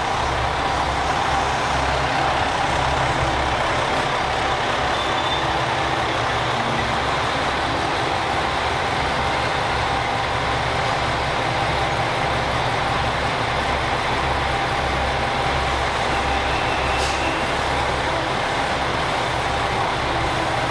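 JR Shikoku 2000-series diesel express train running its diesel engines as it moves slowly along the platform, a steady mechanical throb.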